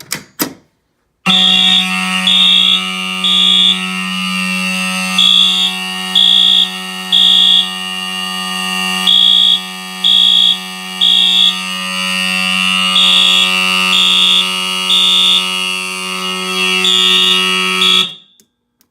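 Fire alarm horns going off after a short click: an Edwards mechanical horn buzzes continuously while a Wheelock MT horn beeps in a code-3 pattern, three beeps and a pause, over and over. Both cut off together near the end as the alarm is silenced.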